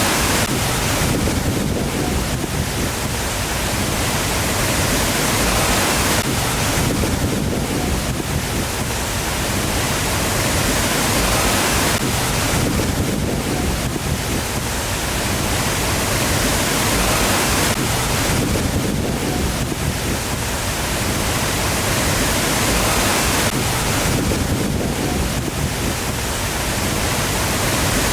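Waterfall: a steady rush of falling water that eases and swells again about every six seconds.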